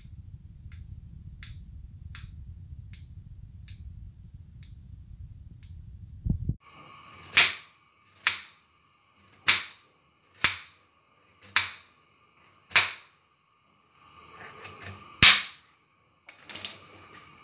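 Kitchen knife slicing through carrots onto a wooden cutting board: faint, evenly spaced cuts at first, then about eight loud, sharp chops roughly a second apart.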